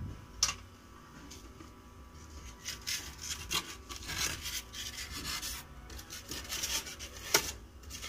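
Polystyrene foam (thermocol) and a wooden box lid rubbing and scraping as the lid is fitted onto a foam-lined box. There is a sharp click about half a second in and a louder one shortly before the end.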